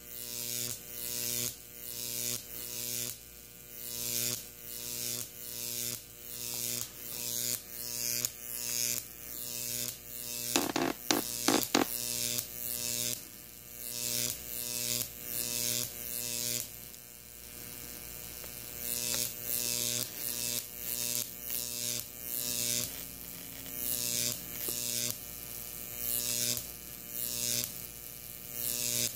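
Jacob's ladder arc from a 12,000-volt neon sign transformer buzzing with a steady electrical hum. The crackling hiss swells as the arc climbs the copper wires, then breaks off and restarts about every three-quarters of a second. A few sharp snaps come near the middle.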